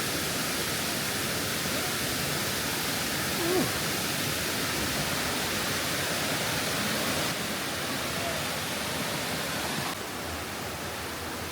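Mingo Falls, a mountain waterfall, rushing with a steady, even roar of falling water.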